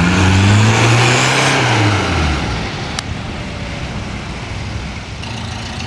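Singer Chamois with its rear-mounted 875 cc four-cylinder engine driving past at low speed. The engine note rises and then drops in pitch as the car passes and pulls away, fading to a quieter steady hum. There is a single sharp click about halfway through.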